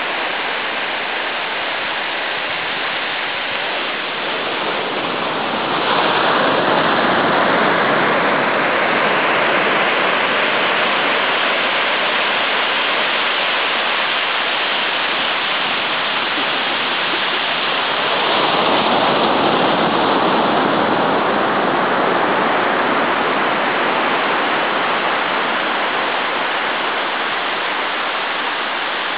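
Ocean surf washing onto a sandy beach: a steady rush of breaking waves that swells louder as a wave breaks about six seconds in and again about two-thirds of the way through, easing off slowly after each.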